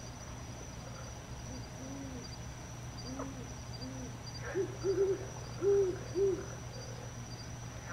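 An owl hooting: a few faint, low hoots, then a run of about five louder, slightly higher hoots in quick succession about halfway through. A steady high insect trill runs underneath.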